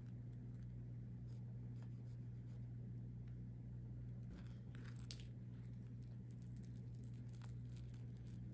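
Crisp fried panko crust of a curry bread crackling faintly under the fingers as it is handled, with a few denser crackles about halfway through. Near the end the bread begins to be torn apart. A steady low hum sits underneath.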